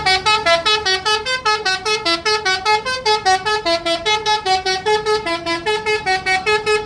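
Bus telolet horn playing a fast multi-note melody, about six short notes a second; it cuts off suddenly at the end.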